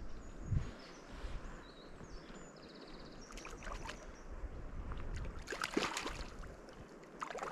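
Water splashing in two short bouts, about three and six seconds in, as a small hooked trout thrashes at the surface close to the angler, with wind rumbling on the microphone.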